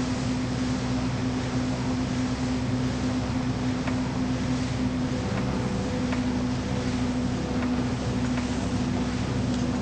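A steady low droning hum over a hiss, like a large engine, with a few faint ticks in the second half.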